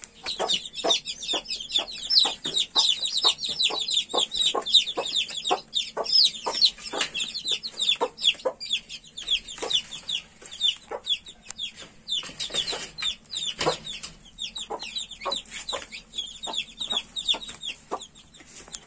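Newly hatched chicks cheeping constantly in quick, high, falling peeps, many each second, with a broody hen clucking in short sharp notes a few times a second.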